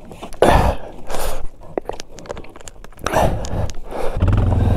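Crunching and rustling from handling the tow rope and moving about in snow, with a few clicks. Near the end a Suzuki King Quad ATV engine comes in, running steadily.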